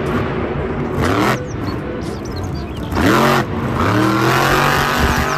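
Monster truck engine revving hard in repeated surges, its pitch climbing with each burst of throttle as it drives across a dirt arena.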